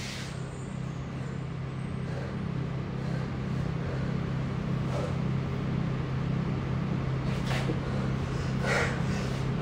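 A steady low hum that slowly swells louder, with a few faint rustles over it.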